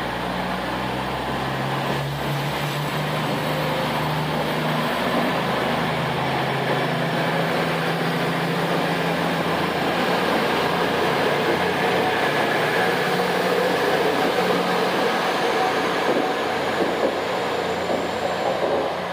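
A train running, with a steady low hum under an even rumble of rail noise.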